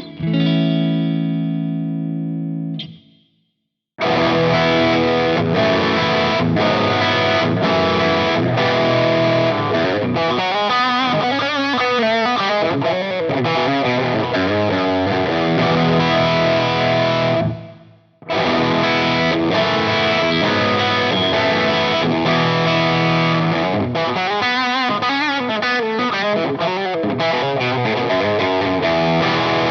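Soloking MS-11 Classic electric guitar played through distortion. A chord rings out and fades away, then after a brief silence comes dense riffing and lead playing, which stops briefly a little past halfway and then carries on.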